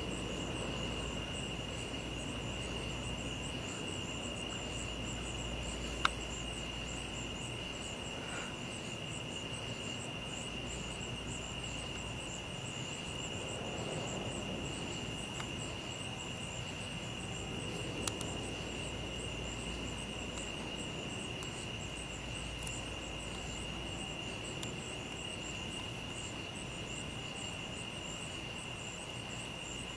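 A night chorus of crickets and other insects: a steady high trill with a faster, evenly pulsing chirping above it. A couple of small clicks are heard partway through.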